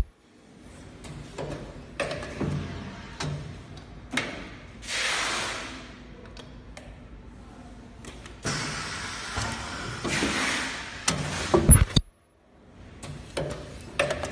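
A semi-automatic tube filling and sealing machine cycling: its moving parts clunk and click as they set, with a few bursts of hissing air lasting a second or two. There is one heavy knock near the end.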